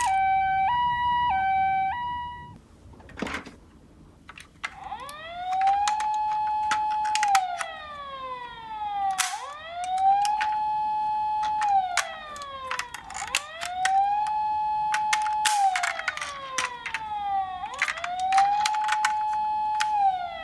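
Toy ambulance minicar's electronic siren: a two-tone hi-lo 'pee-po' alternating about twice a second for the first couple of seconds, then, after a few clicks, a wailing siren that rises, holds and falls four times, about four seconds each. Scattered light clicks and rattles run alongside.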